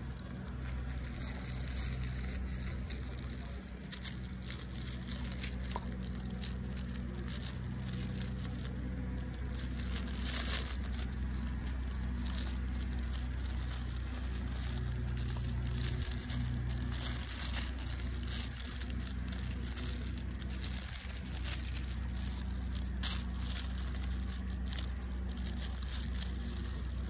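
Rustling and crunching with scattered crackles, over a steady low hum.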